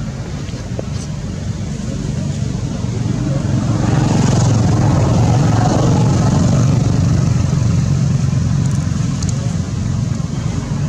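Low rumble of a passing road vehicle, swelling to its loudest in the middle and fading again.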